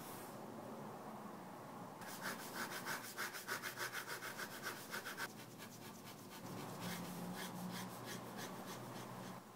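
Bic Cristal ballpoint pen scratching across printer paper in rapid back-and-forth hatching strokes, several a second. The strokes start about two seconds in, stop briefly past the middle, then resume.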